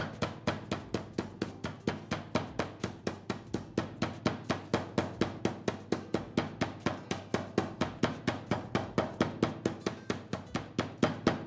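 Flat metal meat pounder striking a chicken breast through a plastic bag on a plastic cutting board, flattening it. The thuds come rapidly and evenly, about four to five a second.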